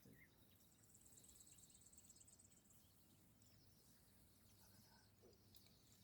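Near silence: outdoor quiet with a faint, high insect trill for about the first half.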